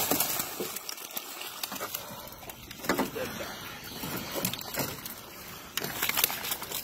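Catfish thrashing and splashing in a hoop net held over the water, with scattered slaps and knocks against the boat's metal side, louder at first.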